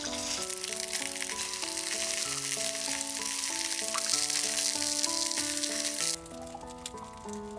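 Background music, a gentle melody of held notes, over a steady hiss with scattered small clicks that cuts off suddenly about six seconds in.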